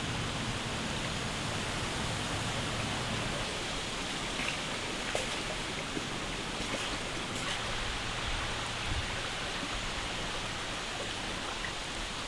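Steady rushing of a flowing stream, with a few faint ticks here and there.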